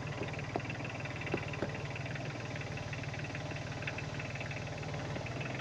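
Tractor engine idling steadily, with a few faint clicks.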